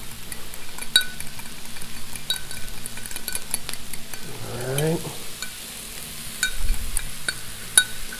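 A metal spoon stirring sauce in a small glass bowl, clinking sharply against the glass again and again with short ringing ticks. Under it runs a steady sizzle of peppers and onions frying on the hot griddle.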